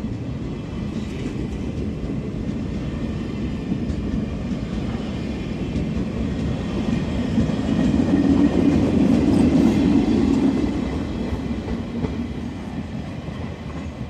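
Covered freight wagons and guard vans of a departing freight train rolling past on the track, a steady rumble with wheel clatter. It is loudest about eight to ten seconds in as the last cars pass, then fades as the train pulls away.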